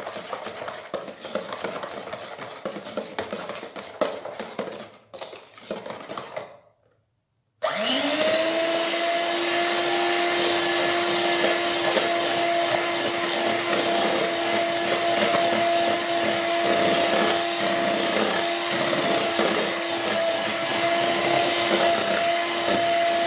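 Electric hand mixer beating chocolate cake batter in a bowl. For the first six seconds it runs with an uneven rattling sound; after a short break it spins up, its pitch rising, and then runs with a steady, loud whine.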